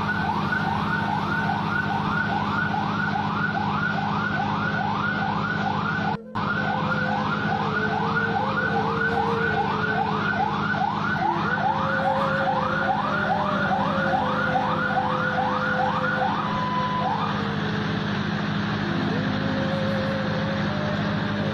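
Emergency vehicle siren on a fast yelp, about two and a half rising sweeps a second, over a steady engine drone. The yelp stops about 17 seconds in, leaving the engine running.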